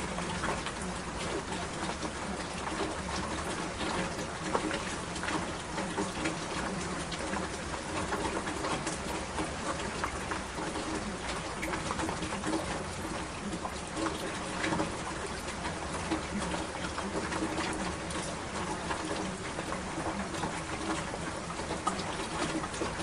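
Steady rain falling, an even hiss with many single drops striking sharply on a surface throughout.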